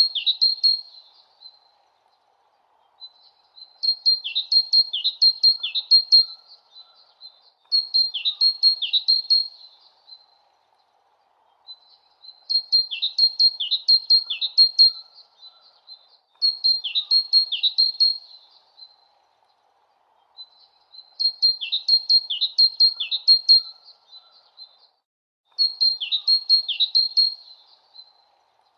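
A small songbird singing the same short chirping phrase again and again, roughly every four seconds: quick high notes with a few fast downward-sweeping whistles in each phrase.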